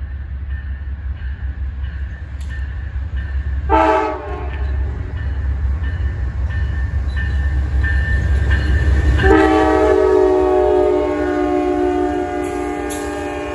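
Amtrak Auto Train approaching with its diesel locomotives rumbling. Its multi-chime horn gives one short blast about four seconds in, then a long blast from about nine seconds on.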